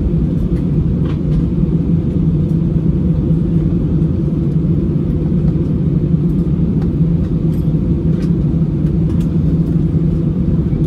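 Steady low rumble of an Airbus A320's engines and airflow heard inside the passenger cabin, with a few faint ticks of cabin fittings rattling.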